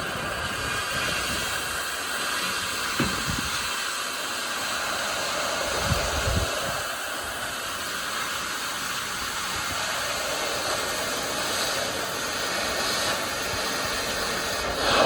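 Steady hissing of a torch cutting through steel, with a couple of dull knocks about three and six seconds in.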